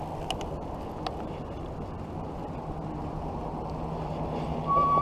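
Electric bicycle riding along a paved path: steady rolling and wind noise with a low steady hum, a few sharp clicks in the first second, and a short high steady tone just before the end.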